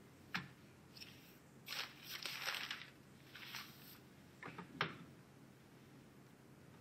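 Paper rustling in short bursts as sheets and newspapers are handled and shifted on a desk, the longest stretch about two seconds in, ending in a sharp tap near five seconds.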